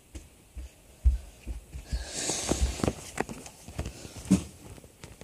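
Handling noise: irregular knocks and clicks as a melody alarm clock is picked up and checked, with a brief rustle about two seconds in and a sharper knock near the end.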